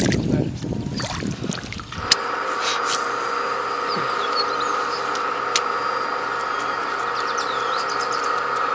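Water splashing and churning as a peacock bass is let go into shallow water. About two seconds in, this gives way abruptly to a steady, even hum of a few fixed pitches, with a few short bird chirps and light clicks over it.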